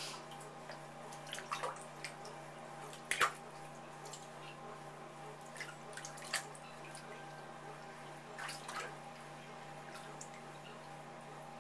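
Pekin ducklings paddling in shallow bathwater in a tub: scattered small splashes and drips, the loudest about three seconds in, over a steady low hum.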